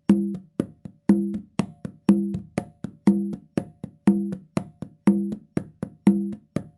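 Hollow wooden barrel struck in a steady rhythm: a resonant knock about once a second, with two or three lighter taps between.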